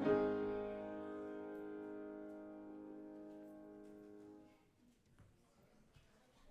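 Final chord of instrumental music struck and left to ring, fading away over about four and a half seconds, then faint room noise with a few small clicks.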